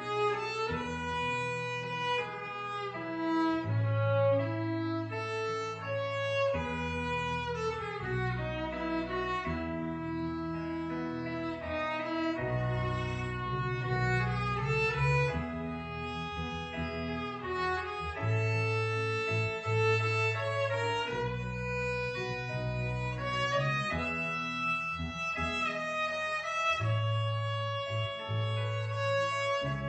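Violin playing a slow hymn melody with sliding notes over a low bass accompaniment.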